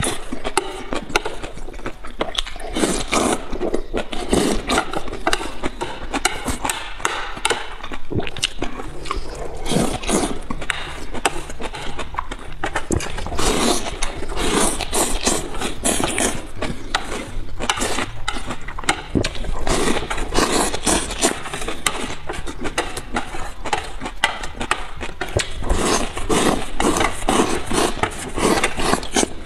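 Close, loud slurping and sucking of noodles and shredded vegetables in red, oily broth, in rapid irregular bursts with wet clicks, as chopsticks scrape across a steel tray.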